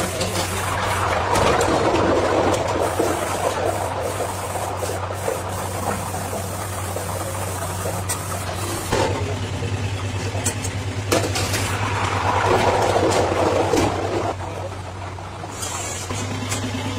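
Steady low machine hum with two swells of rushing noise, one near the start and one about twelve seconds in, and scattered clicks and knocks of hard hollow plastic toy parts being handled.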